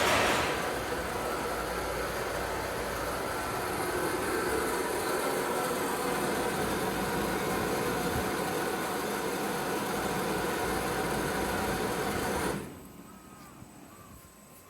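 SMC HRSH250 inverter thermo-chiller running steadily: a hum of fan and refrigeration compressor with several held tones, after a short loud rush at the start. About twelve and a half seconds in the machine noise cuts off suddenly, leaving a quiet background with faint bird calls.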